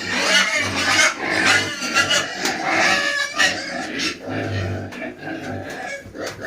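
Duroc piglets squealing and grunting, with irregular high-pitched calls throughout.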